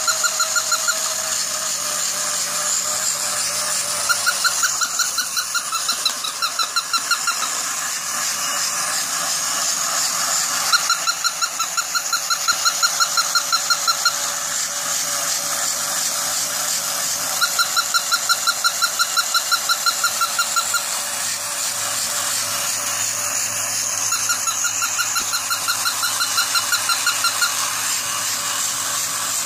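Battery-powered walking plush toy dog: its small motor and gears whirring steadily, with several bursts of quick, high-pitched electronic yapping a few seconds long.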